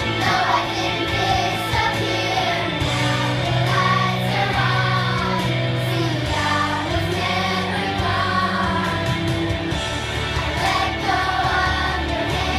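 A children's choir of girls singing a song together into microphones, over instrumental accompaniment with a bass line that holds each note for a second or two.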